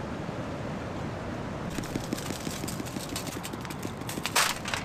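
Plastic seasoning shaker shaken over a trout on aluminium foil: a fast rattle of seasoning granules from about two seconds in, with a brief louder rustle near the end.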